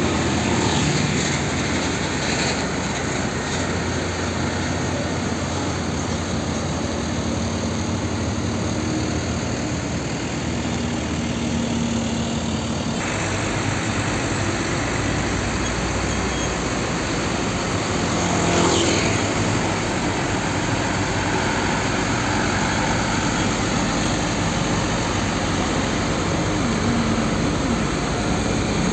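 Heavy diesel trucks, among them Hino 500s, passing close by on a busy road. Engines run steadily and tyres roll on the asphalt, mixed with general traffic.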